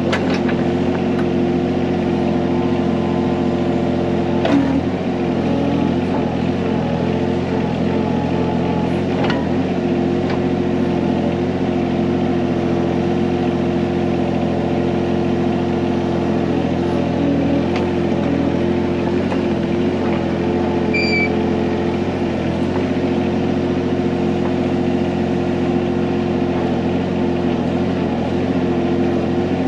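John Deere 17G mini excavator's diesel engine running steadily at a constant speed while it digs, with a few short knocks near the start and about four and nine seconds in.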